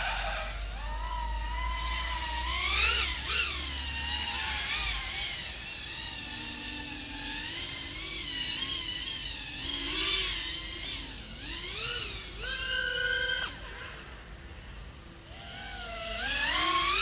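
Brushless motors and propellers of an iFlight AOS 3.5 V5 FPV quadcopter (XING 1504 3100KV motors) whining, the pitch rising and falling with throttle. A punch to a high steady whine comes about twelve and a half seconds in and again near the end, with a brief lull between them.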